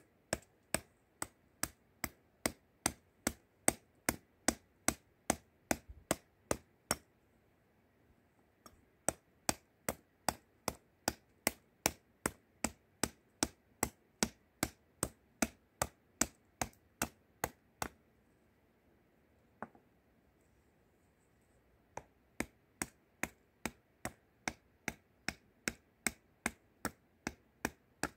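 Small hatchet chopping into a wooden spoon blank on a wooden chopping block: sharp, regular chops about two a second, in three runs with short pauses between them.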